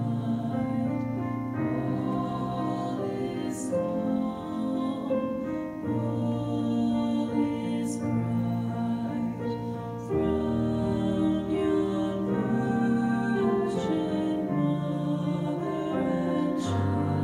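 A slow, gentle song: voices singing over soft, sustained chords that change every second or two.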